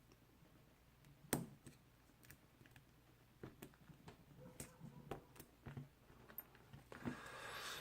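Small metal clicks and taps as a padlock's lock core and its C-clip retainer are worked loose by hand, with one sharp click about a second in and a brief scraping slide near the end.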